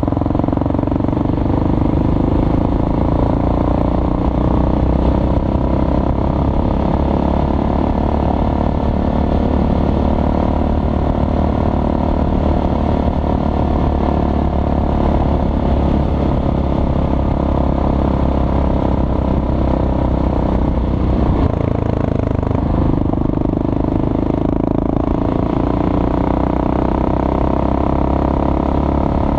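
Kawasaki KLR650's single-cylinder engine running steadily under way, with a brief dip and then rise in the engine note about three quarters of the way through.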